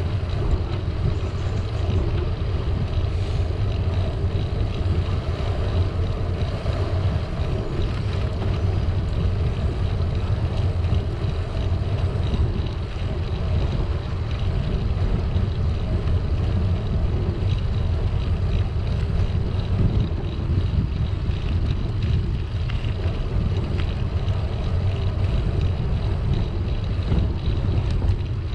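Steady low rumble of wind buffeting the microphone of a camera on a moving bicycle, with the bike's road tyres rolling on tarmac.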